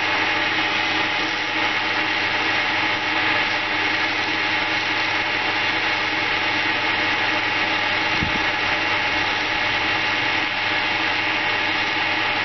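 Small wood lathe's electric motor running steadily, spinning a banksia seed pod while sandpaper is held against it, a steady hum under the hiss of sanding.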